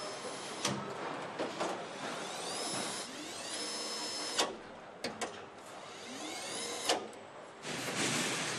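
Handheld power nut runner spinning up with a rising whine, running steadily and cutting off suddenly, twice, as it drives fasteners into a car body; sharp clicks of tools and parts between runs. Near the end a louder, even noise of the assembly hall takes over.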